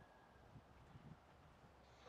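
Near silence: faint outdoor background with a few soft low thumps and a faint thin high tone that fades out about a second in.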